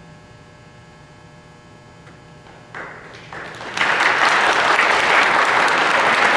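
A faint steady hum, then scattered claps a little under three seconds in that swell about a second later into loud, sustained applause from a crowd.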